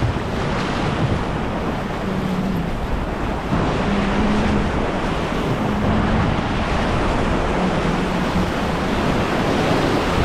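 River water rushing and splashing around an inflatable whitewater raft as the crew paddles forward, with wind buffeting the microphone.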